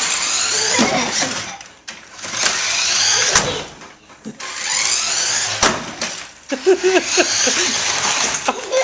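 Toy RC truck's electric motor whirring in about four bursts of throttle, each a couple of seconds long with short pauses between them.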